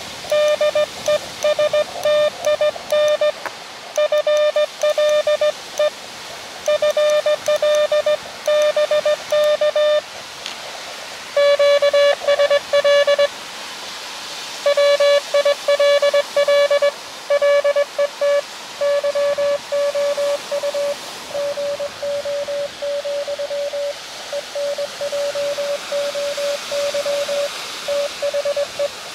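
Morse code (CW) from an Elecraft KX2 transceiver during a ham radio contact: a single tone near 600 Hz keyed on and off in rapid dits and dahs, with short pauses about ten and thirteen seconds in. The messages are the contact's closing exchange, the other station signing off.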